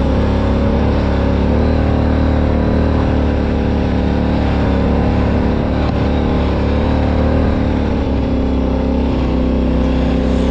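Off-road vehicle engine running steadily, its pitch holding nearly level with only slight changes.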